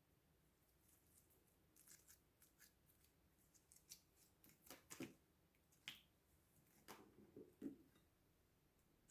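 Faint, irregular clicks and sticky snaps of slime being worked by hand, thickest and loudest a little past the middle, with a couple of softer squelches near the end.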